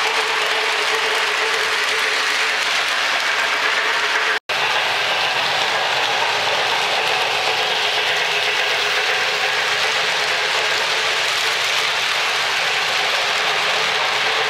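O-gauge model trains running on Lionel Fastrack three-rail track: a steady rattling clatter of wheels on the track and the locomotives' geared motors. The sound cuts out for an instant about four seconds in.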